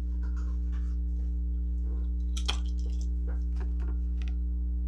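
A steady low electrical hum, with a few faint small clicks and one slightly sharper tick about halfway through.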